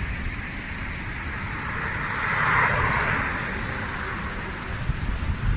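Tesla electric race car passing at speed, heard only as a swell of tyre and wind noise that peaks about two and a half seconds in and fades, with no engine sound. Under it, the steady rush of a mountain river.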